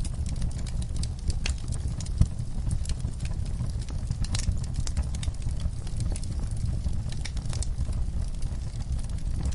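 Wood fire burning in a fireplace: a steady low rumble of the flames with irregular crackles and pops from the logs, one sharper pop a little over two seconds in.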